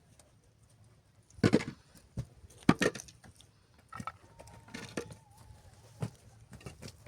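About half a dozen irregular knocks and scuffs, the loudest two in the first half, with a faint thin whistle-like tone held briefly near the middle.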